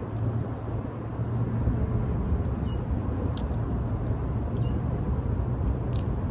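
Steady low engine rumble of nearby road traffic, with a few faint clicks.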